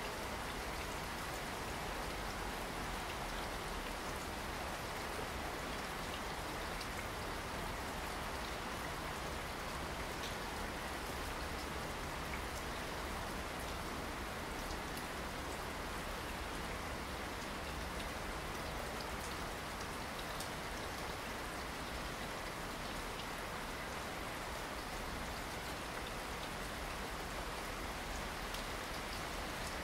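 Steady rain falling: an even hiss with scattered ticks of single drops.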